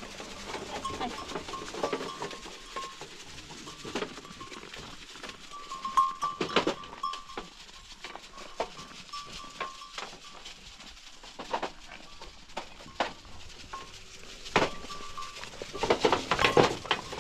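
Goats bleating in short, repeated calls, with scattered knocks and clatter, a cluster of them near the end.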